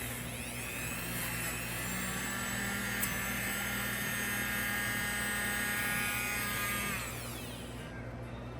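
Dremel rotary tool running with a high whine whose pitch wavers as it is pressed against the work, then spinning down about seven seconds in.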